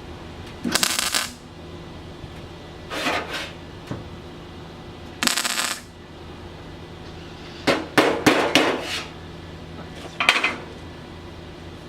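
Sheet metal being handled and worked with hand tools: a series of short metallic clatters and scrapes, with a cluster of them about two thirds of the way through, over a steady low hum.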